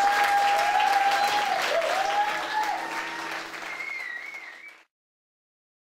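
Audience applauding at the end of a performance, with a few voices calling out over the clapping; the applause fades and cuts off about five seconds in.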